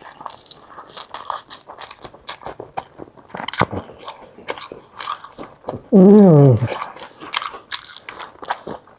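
Chewing and crunching of food close to the microphone, with many small crisp crackles and wet mouth clicks. About six seconds in, a short hummed 'mmm' that falls in pitch.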